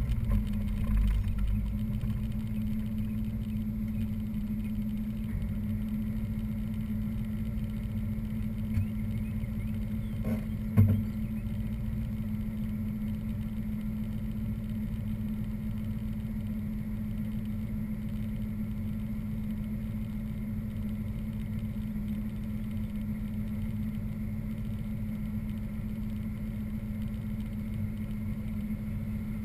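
The 1986 Corvette's LT4 small-block V8 idling steadily at a standstill, with one brief thump about eleven seconds in.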